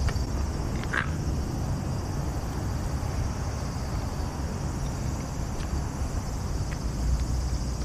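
Outdoor ambience: a steady low rumble with a steady high-pitched hiss, and a short high chirp about a second in.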